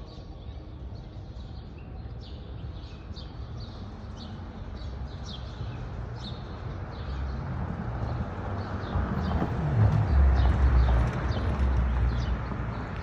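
Birds chirping, short high calls repeating a few times a second. Under them a motor vehicle passes, its low road noise building to its loudest about ten seconds in and then easing off.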